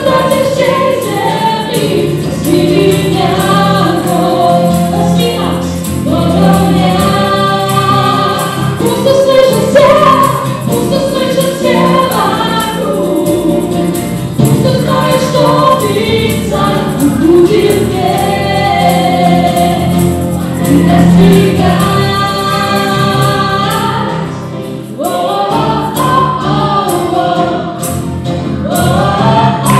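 Live worship band: a group of male and female singers on microphones singing a praise song together, backed by keyboard and acoustic and electric guitars. The singing eases off briefly near the end, then builds again.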